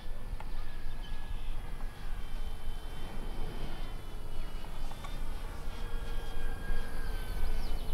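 Distant whine of an RC warbird's electric motor and propeller high overhead, a thin steady buzz that drifts a little in pitch as the plane flies its manoeuvre, over a low, uneven rumble.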